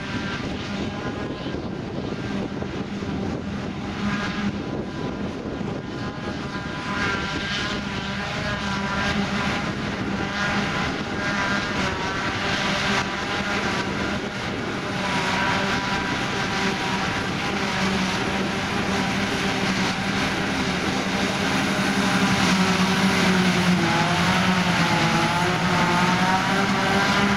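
A John Deere 7750 self-propelled forage harvester chopping grass, with a John Deere 6140 tractor and silage trailer running alongside. Their big diesel engines and the harvester's machinery make a steady drone with a held hum, growing louder as the machines come closer.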